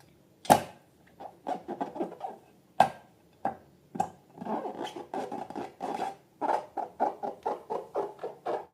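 Slime being worked by hand, giving a run of short sticky squelches and crackles, several a second in the second half, with a few sharp louder snaps.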